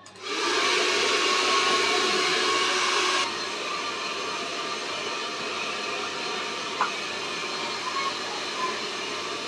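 Handheld hair dryer switched on, blowing with a steady rush of air and a faint motor whine; about three seconds in it drops to a noticeably quieter, lower level and runs on steadily.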